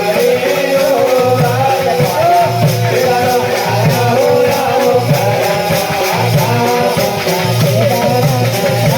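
Devotional bhajan music: a wavering melody over a steady, repeating low beat with a fast light rhythm on top.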